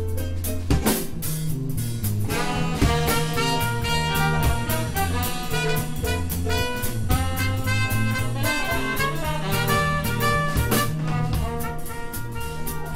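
A live small jazz band playing swing, with a walking bass line and a drum kit keeping time on cymbals. Trumpet and trombone come in together about two seconds in and carry the melody.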